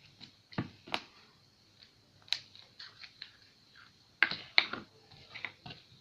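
Slime being mixed and squeezed by hand, giving irregular sticky clicks and pops, the loudest pair about four seconds in.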